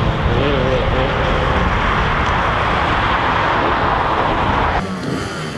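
Enduro motorcycle engine running hard at high revs, breaking off abruptly near the end to a quieter background.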